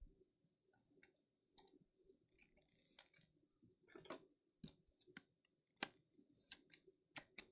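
Faint, irregular soft clicks and brief rustles of trading cards being handled and shuffled between callouts.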